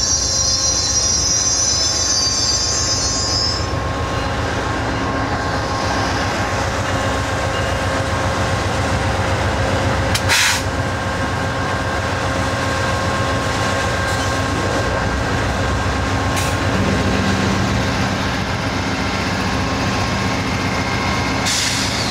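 Amtrak Superliner passenger train at slow speed on the platform track: high-pitched wheel squeal that fades out a few seconds in, over a steady rumble. Then the steady rumble and hum of its P42DC and P40DC diesel locomotives close by, with one sharp knock about ten seconds in and a deeper engine hum joining later as the second locomotive comes alongside.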